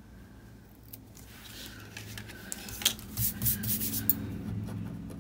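Paper and sticker sheets being handled at a desk: rubbing and rustling, with a few small sharp clicks and taps.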